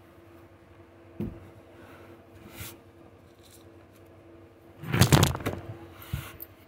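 Handling noise of a phone being picked up, with cloth brushing over its microphone, loudest about five seconds in. A single knock comes about a second in.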